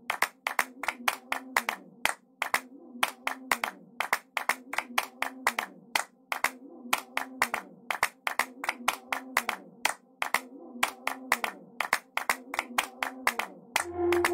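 Handclaps playing a repeating syncopated dance rhythm, about three to four claps a second, over a faint wavering low melody. Near the end a bass note and a held synth note come in as the full track starts.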